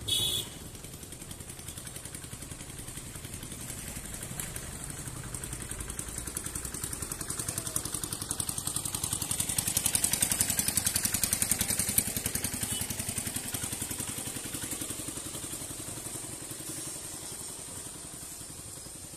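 Road vehicle engines running, with a rapid, even pulsing that swells to a peak about halfway and then fades. A short horn beep sounds right at the start.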